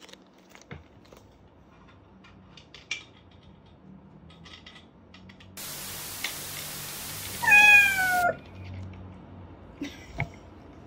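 Faint, scattered soft ticks of a cat lapping water. About seven and a half seconds in, over a steady hiss that starts and stops abruptly, a domestic cat meows once, a short call falling slightly in pitch.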